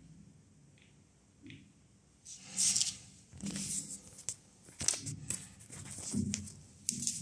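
Handling noise: irregular rustling with a few sharp clicks, starting a little over two seconds in.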